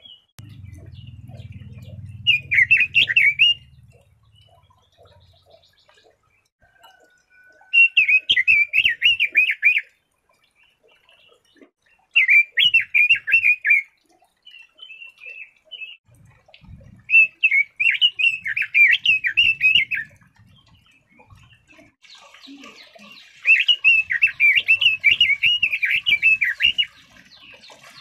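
Red-billed leiothrix singing: five phrases of rapid warbled notes, each two to three seconds long, a few seconds apart.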